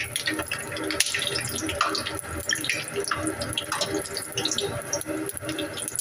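A breaded bread piece frying in hot oil in a pan, sizzling steadily with many small crackling pops, while a wire-mesh strainer works in the oil.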